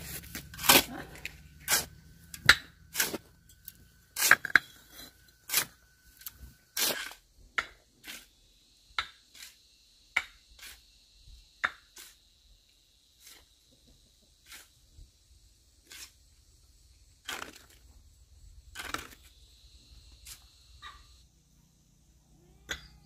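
Wet cement mix being turned over by hand, a tool scraping through it in short sharp strokes. The strokes come about one or two a second at first and grow sparser after about eight seconds.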